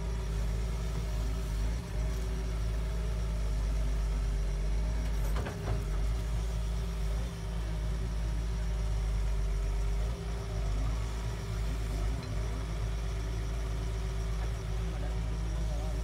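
Doosan DX140W wheeled excavator's diesel engine running steadily under digging work, a constant low rumble with a steady hum on top.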